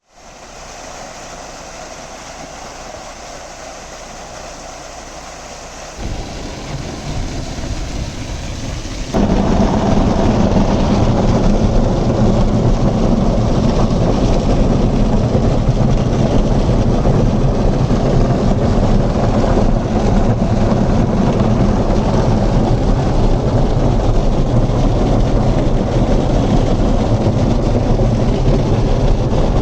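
Waterfall water pouring down onto a Mahindra Scorpio N in a water-leak torture test, a heavy, even rush. It starts moderate, grows louder about six seconds in, then jumps to a loud steady downpour about nine seconds in.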